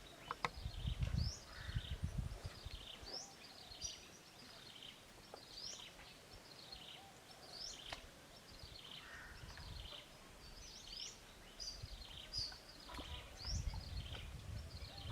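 A bird calling over and over: each call is a high note sweeping upward, followed by a short falling chatter, roughly one every second or so. Low rumbles come and go underneath, strongest about a second in and near the end.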